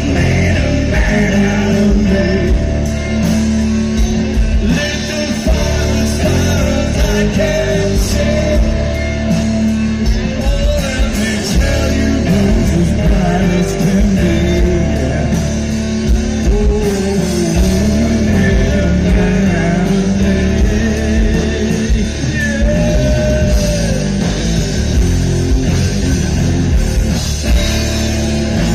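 Live rock band playing loud, with distorted electric guitars, bass, drums and keyboard under a man singing.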